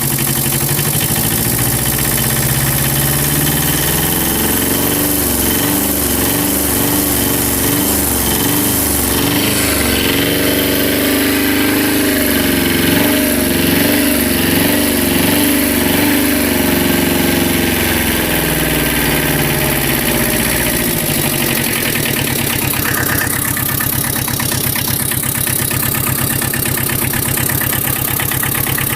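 Tata Magic's engine, running exposed on the bare chassis without its body: it is revved up and held higher through the middle, then drops back to a steady idle about twenty seconds in.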